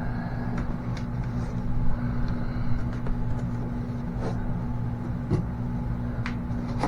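A steady low machine hum, with a few light knocks and rustles from an RC truck's cardboard box and packaging being handled.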